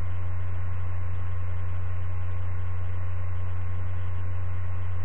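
A steady low-pitched hum, unchanging throughout, with faint higher steady tones above it.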